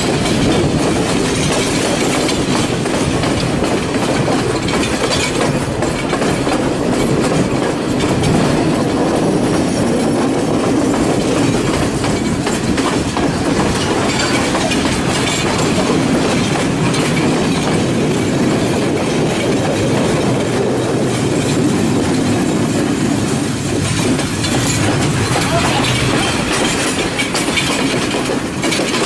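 Passenger train running along the track, heard from on board: a steady rolling rumble with the clickety-clack of wheels over the rail joints.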